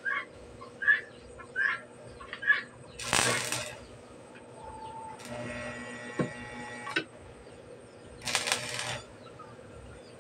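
Stick-welding arc crackling in two short tack welds on the chopper's steel rod frame, each under a second, about 3 s and 8.5 s in. Small sharp ticks come between, and a steady hum sounds for about two seconds midway.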